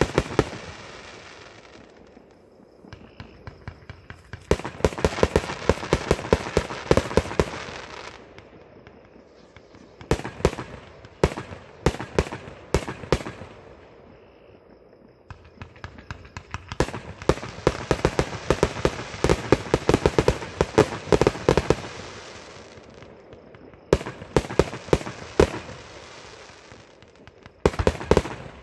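Fireworks going off: rapid strings of sharp crackling pops in several bursts lasting a few seconds each, with quieter gaps between them.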